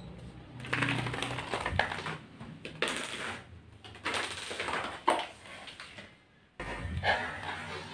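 Cardboard dominoes toppling one after another on a tiled floor: a rapid clatter of light taps that comes in several runs with short pauses between.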